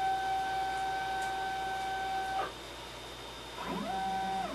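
Xylotex stepper motors driving a home-built CNC router's lead screws as the axes are jogged on a first test run. A steady whine cuts off about halfway through, then near the end another move starts, its pitch ramping up and holding.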